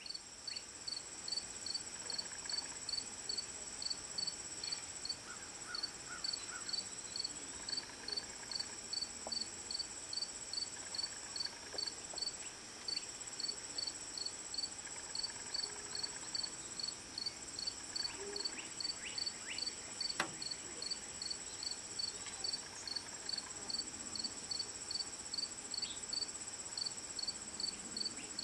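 Crickets and other field insects: a steady high-pitched trill overlaid with a regular chirping about twice a second.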